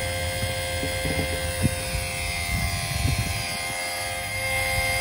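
Small electric water transfer pump running with a steady hum, pumping water through a hose into an RV fresh water tank, with a brief knock about one and a half seconds in.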